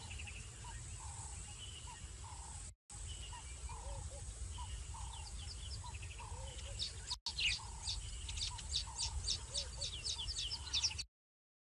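Wild birds calling around a waterhole: a short low note repeated about twice a second, with scattered high chirps and, from about seven seconds in, a fast run of high chirps. A steady low rumble runs underneath, and the sound cuts out briefly twice and again near the end.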